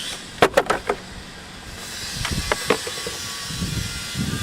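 A cluster of sharp clicks and knocks about half a second in, then scattered clicks and a few duller knocks over a steady hiss: hands working on the car to get at the battery.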